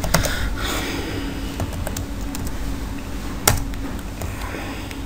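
Computer keyboard keystrokes: a few scattered clicks, one louder than the rest about three and a half seconds in, over a steady low hum.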